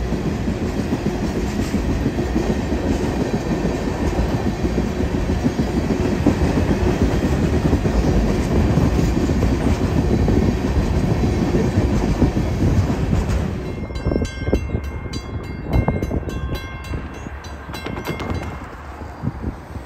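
Freight cars (tank cars, boxcars and covered hoppers) rolling past with steady wheel noise on the rails. About fourteen seconds in it gives way to a railroad grade-crossing bell ringing in quick, even strikes, with a low rumble under it.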